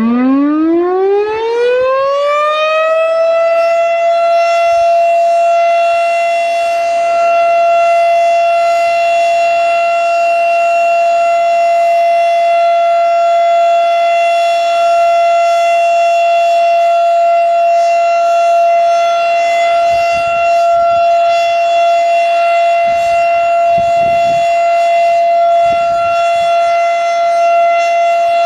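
Federal Signal STH-10A rotating single-tone warning siren winding up and sounding its steady full-alert tone: the pitch climbs steeply over the first two to three seconds, then holds at full speed.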